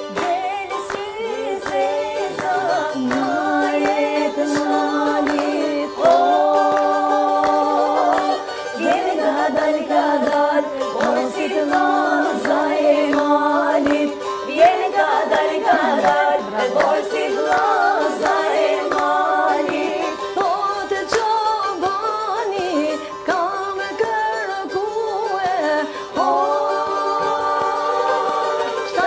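Women singing an Albanian folk song, long held notes over a steady low drone.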